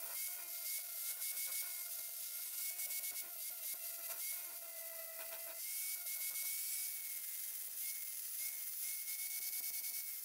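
Electric angle grinder running under load, its abrasive disc grinding a steel splitting wedge. A steady motor whine sits over a dense grinding hiss that flickers constantly as the disc works the metal.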